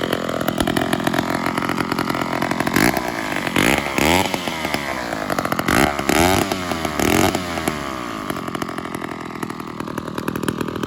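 Two-stroke chainsaw engine running, revved up hard several times in the middle, each rev rising and falling in pitch, then settling back to a steady idle.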